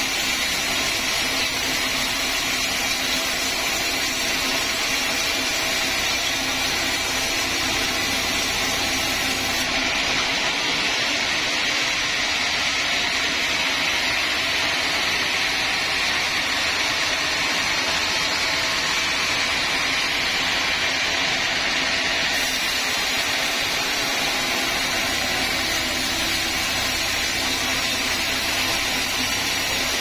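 Band sawmill running with its band blade cutting lengthwise through a large teak log: a steady, even hiss of blade through wood over the machine's hum. The sound changes slightly about ten seconds in and returns near twenty-two seconds.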